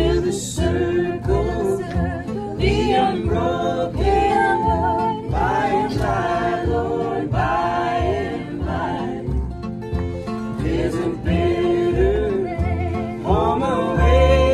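Mixed men's and women's voices singing a gospel-style chorus together in harmony, backed by acoustic guitar and a plucked upright bass that keeps a steady beat.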